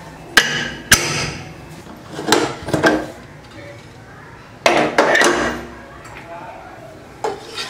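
Greenchef aluminium pressure cooker lid being shut: two sharp metallic clanks about half a second apart, each ringing briefly. Fainter knocks and clatter follow later.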